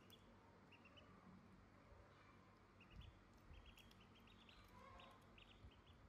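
Faint, short, high peeps from two ducklings, coming in quick runs and thickest in the second half.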